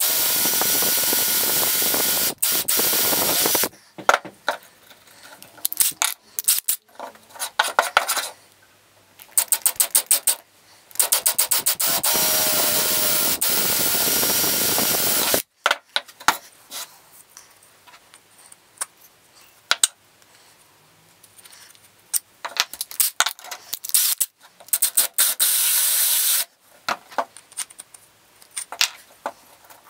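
Drill boring holes into 18mm plywood blocks, running in three stretches of a few seconds each (at the start, in the middle and near the end), with short quick blips and taps in between.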